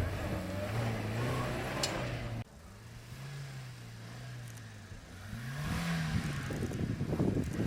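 Off-road 4x4's engine revving up and easing off as it works through a competition course. The sound cuts abruptly about two and a half seconds in to a quieter stretch, where the engine climbs in pitch and grows louder again near the end.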